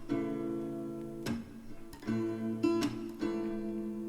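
Background music: acoustic guitar strumming chords, in an instrumental gap between the sung lines of a pop song.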